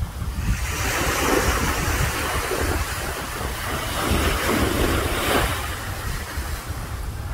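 Wind buffeting the microphone, with the hiss of waves washing on the shore swelling about half a second in and dying away near the end.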